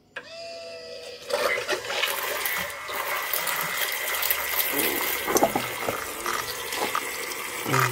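Volkswagen Golf IV 4Motion in-tank electric fuel pump switched on, its motor whine starting suddenly and settling within the first second. About a second in, fuel begins gushing and gurgling through the pump housing and hoses, with the motor's steady whine running underneath.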